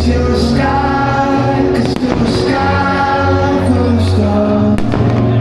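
Loud music with singing, with a few short firework bangs cutting through it, the clearest one near the end.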